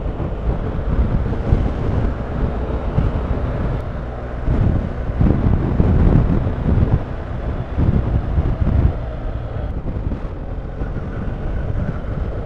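Wind rushing and buffeting over the camera microphone of a moving motorcycle, with the low running of the bike and its road noise underneath; the rush swells louder for a few seconds near the middle.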